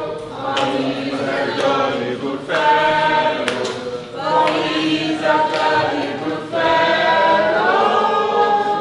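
A group of voices singing together in chorus, holding notes in phrases a couple of seconds long with short breaks between them.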